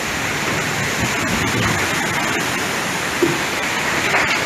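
Heavy rain and strong wind of a summer storm, a steady dense rush of noise.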